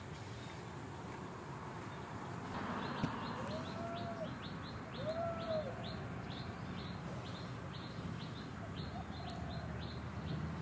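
Bird calls: short, high, falling chirps repeated about three a second, with two lower rising-and-falling calls a few seconds in.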